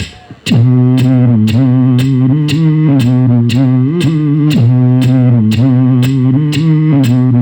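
Breton-style bagpipe music starting about half a second in: a steady low drone with a melody above it, over a beat of about two clicks a second.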